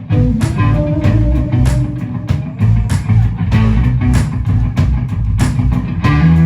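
Live blues-rock band playing: guitar over bass guitar and a steady drum beat, about two hits a second.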